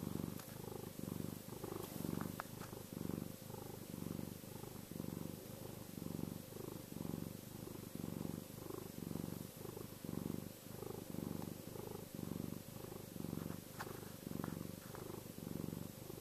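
Domestic cat purring steadily up close, a low rumble that swells and eases with each breath in and out, about two pulses a second.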